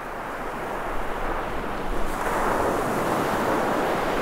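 Ocean surf washing in at the shore, a steady rush that swells louder about two seconds in.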